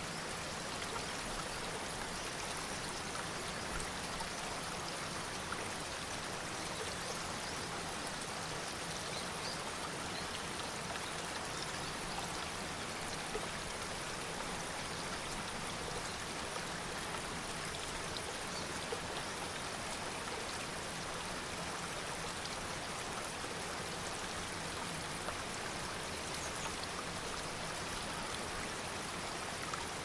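Rocky mountain waterfall: water rushing and splashing over rocks in a steady, even wash, with a few small splashes standing out now and then.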